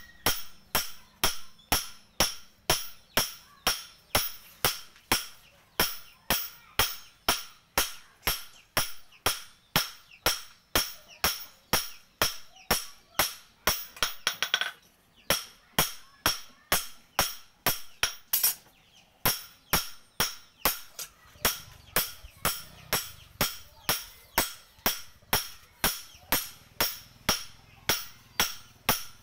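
Hand hammer striking a steel kitchen knife blade on a steel stake anvil: steady ringing blows, about two a second. A quick flurry of lighter taps comes about halfway through, and the blows pause briefly a few seconds later.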